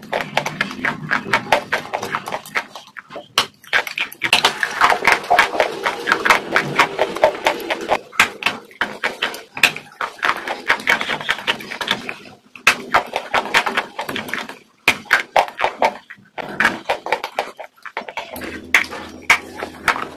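Close-miked chewing and crunching of a hard, crisp food: rapid dense crackles and crunches, broken by a few short pauses.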